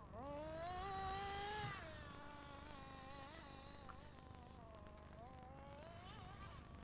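Small two-stroke glow-fuel engine (OS Max) of a 1/8-scale Graupner Impuls 3000 nitro buggy, revving. Its pitch climbs and holds high for about two seconds, then drops and wavers up and down at a lower, quieter level.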